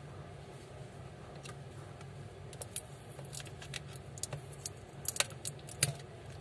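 Small sharp clicks and taps of a precision screwdriver and small metal parts on a phone's opened frame as screws are driven in, scattered and coming more often in the second half, over a steady low hum.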